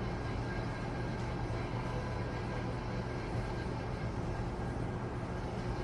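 Steady low rumble of city street traffic, heard from indoors through a window.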